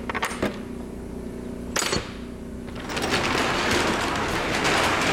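The metal latch on the box truck's rear cargo door clicks and clacks open, with one sharp knock about two seconds in. About a second later the door slides open with a long, loud, noisy rush. The truck's Cummins Onan generator hums steadily underneath.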